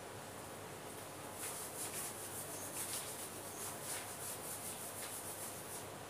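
Marker drawing being wiped off a plastic-covered chart sheet with quick back-and-forth rubbing strokes. The rubbing starts about a second and a half in and stops near the end.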